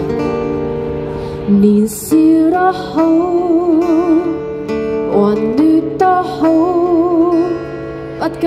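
Acoustic guitar playing a song's instrumental introduction: ringing strummed chords at first, then a slow melody line with vibrato over held chords, with a few short sharp hits.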